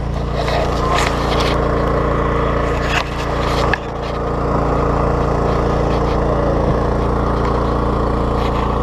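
Steady drone of an engine running on an electrofishing boat, with a couple of knocks about three seconds in.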